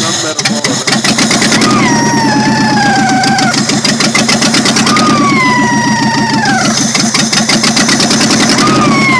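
Car engine running with a fast, even ticking. A whine slides down in pitch about two seconds in, again about five seconds in, and near the end.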